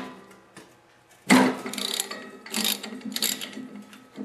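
Hand ratchet with a 3/4-inch socket clicking in several short bursts as it is swung back and forth. It is tightening a bolt threaded into a leaf vacuum fan's hub to press the fan off the engine crankshaft.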